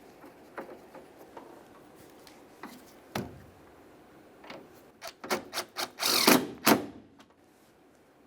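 Hand ratchet clicking as the door handle's mounting bolts are run in snug. A few separate clicks and knocks come first, then a quick run of ratchet clicks about five seconds in.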